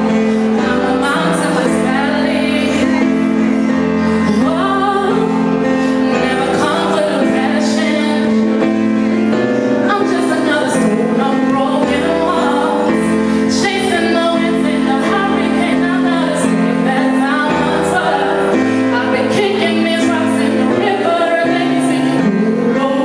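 A woman singing a cover song live into a microphone over sustained electric keyboard chords.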